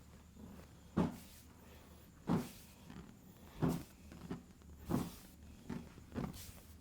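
Hand strikes of a massage on the body: five slaps in an even rhythm, about one every second and a quarter, with a few softer pats between.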